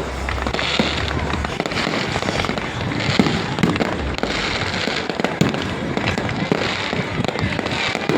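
Fireworks display going off: a dense, continuous stream of cracks and pops with no pause.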